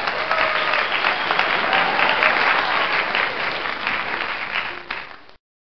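A crowd applauding, dense clapping that stops abruptly about five seconds in.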